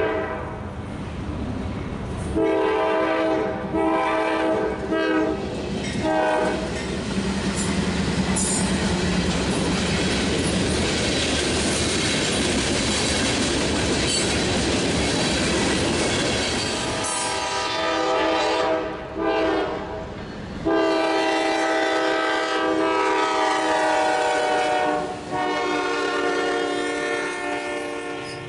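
A freight locomotive horn, on the lead GE C44-9W, sounds several blasts at a grade crossing: two longer ones and then a short one in the first few seconds. Then the train's freight cars rush past with wheel clatter on the rails. More long horn blasts sound in the second half.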